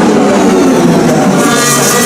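Formula 1 cars' 1.6-litre turbocharged V6 engines running at speed, with one climbing in revs near the end.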